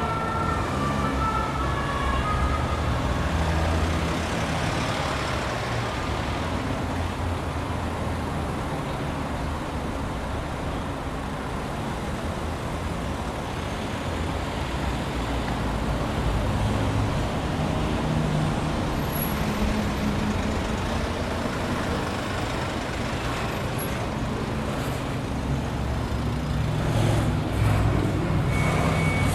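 Road traffic: cars and light trucks driving past with steady engine rumble and tyre noise. The rumble swells near the end as a vehicle passes close.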